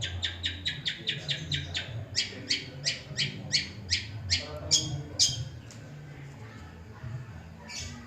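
Long-tailed shrike (cendet) calling a rapid series of short, sharp chattering notes, about six a second at first, then slowing to two or three a second and stopping about five and a half seconds in. A low hum runs underneath.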